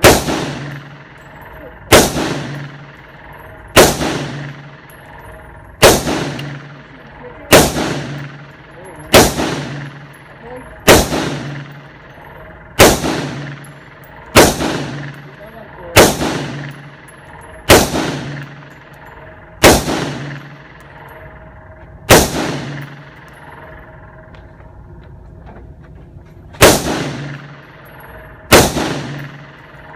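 Single gunshots fired at a steady pace, about one every two seconds, each with a ringing echo tail. There are about fifteen shots, with one longer pause of about four seconds after the thirteenth.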